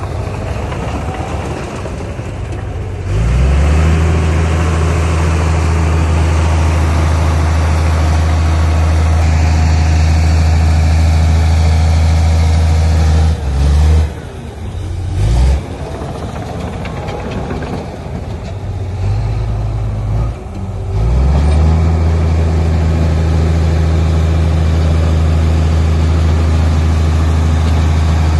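Heavy diesel engine of an earthmoving machine revving up about three seconds in and holding a loud, steady drone under load. It drops back twice for a moment, once near the middle and once about two-thirds through, and revs up again each time.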